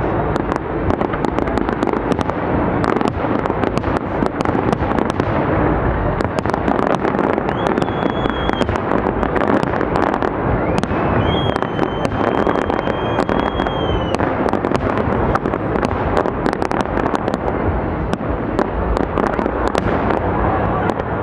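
Fireworks display going off in a dense, continuous barrage of crackling and banging. A high, steady whistle sounds twice around the middle, the second lasting about three seconds.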